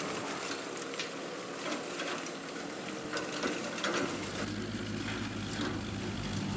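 Irregular mechanical clicking and rattling over a steady noisy bed, with music fading in about four seconds in.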